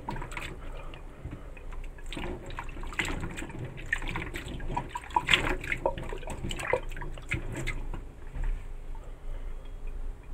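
Water sloshing and splashing irregularly in a bowl as a hand swishes and rubs yardlong beans, rinsing them clean; the splashing dies down over the last couple of seconds.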